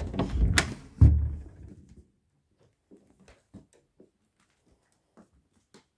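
Rubbing and bumping right on the phone's microphone as it is handled and moved about, with a loud thump about a second in, then faint scattered clicks and rustles.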